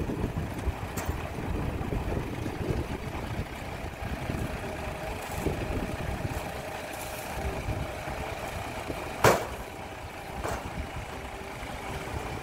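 Diesel engine of a small 5-ton dump truck running steadily while its tipped bed is lowered, with one sharp bang about nine seconds in.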